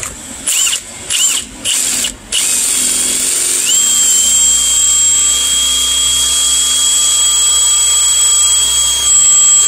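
Electric drill with a steel bit boring into an ABUS bike lock. It gives a few short trigger bursts, then runs with a steady high whine from about two and a half seconds in, the pitch stepping up slightly near four seconds.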